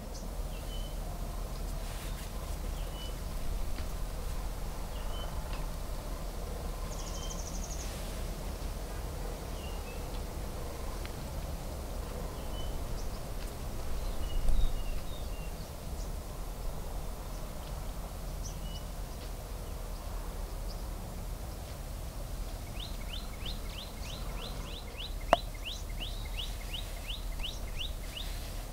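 Outdoor ambience of birds chirping: short high chirps every second or two, and near the end a fast run of about four short rising notes a second, over a steady low rumble. A single thump about halfway is the loudest sound.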